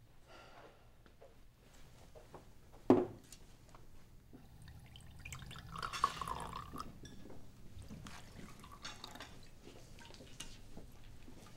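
Whiskey being served at a bar: a glass is set down with a sharp knock about three seconds in, then liquid is poured into it, with small glass and bar clinks around it.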